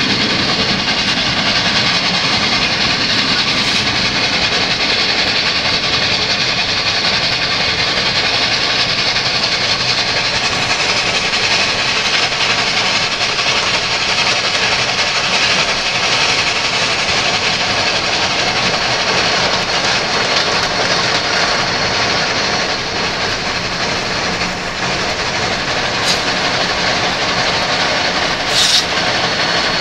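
Union Pacific 844, a 4-8-4 steam locomotive, running at speed with its train, heard from a car pacing alongside: a loud, steady rushing noise with no let-up, and a couple of sharp clicks near the end.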